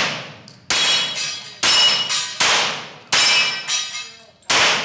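A handgun fired in a quick string of about seven shots, each echoing off the concrete walls of an indoor range. Steel knock-down targets ring briefly when hit.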